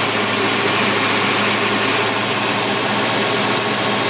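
Engine running steadily on a marine Rochester two-barrel carburetor that is being tested, with an even low hum and a hiss that stay level.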